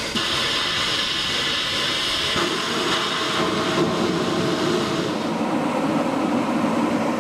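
Steam locomotive boiler blow-off valve held open, blasting steam and water out to clear sediment from the boiler: a loud, steady hissing rush. The sound deepens about two and a half seconds in.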